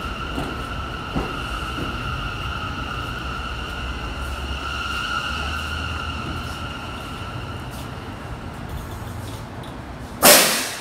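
R179 subway train rolling slowly into the station and coming to a stop, with a steady high whine over a low rumble that fades out after about eight seconds. Near the end, a sudden loud burst of air hiss, typical of the brakes venting as the train stops.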